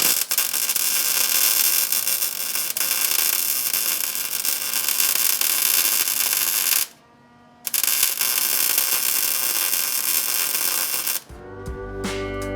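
Welder laying weld beads on the steel frame rail of a 1970 Dodge Challenger: a steady hiss for about seven seconds, a short break, then a second run of about three and a half seconds. Background music comes in near the end.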